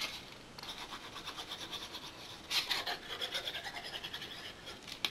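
Tip of a liquid glue bottle rubbing along a cardstock tab as glue is spread on it: a soft, scratchy rubbing, louder for a moment about two and a half seconds in.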